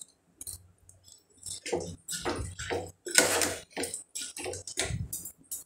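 Soaked rice and dal tipped from a steel bowl into the wet contents of an aluminium pressure cooker, a spoon scraping them out in a run of irregular wet scrapes and plops.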